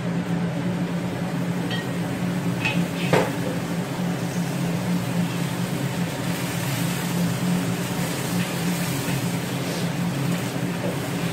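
Stir-frying in a carbon-steel wok: a wooden spatula stirring and knocking against the wok a few times in the first few seconds, over a light sizzle. A steady low electric hum from a kitchen appliance runs underneath.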